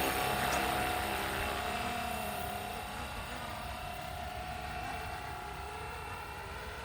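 Flywing Bell 206 RC model helicopter's electric motor and rotors running in flight with a steady whine, growing gradually fainter as it lifts away after take-off.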